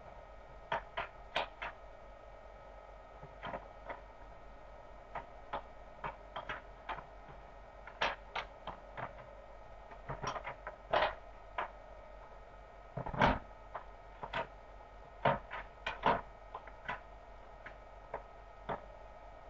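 Irregular sharp clicks and taps, a few dozen of them, loudest in a cluster about two-thirds of the way through, over a steady hum.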